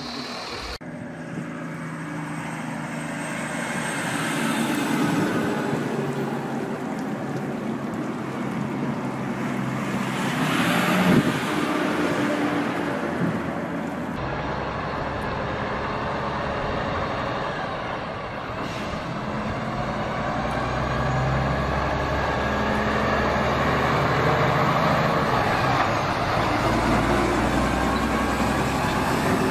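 Diesel engines of heavy vehicles running and driving by. In the second half, multi-trailer road trains pass with a steady low engine drone that swells and fades as they go by.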